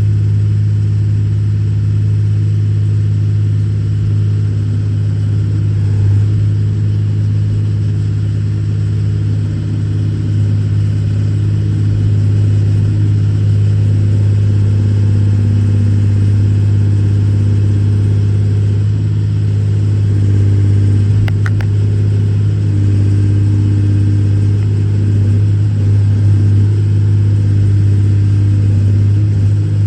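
Case 125B excavator's diesel engine running steadily at working speed, a loud, even low hum, with one brief click about two-thirds of the way through.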